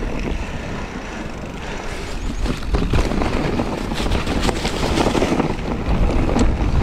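Wind buffeting the microphone over the rolling noise of mountain bike tyres, with clattering knocks and rattles of the bike from about halfway as it rides onto a rough, stony dirt trail.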